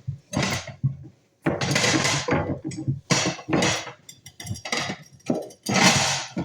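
Dishes clattering as a dishwasher is unloaded: plates and cutlery knocking together in a string of separate bursts, the loudest near the end.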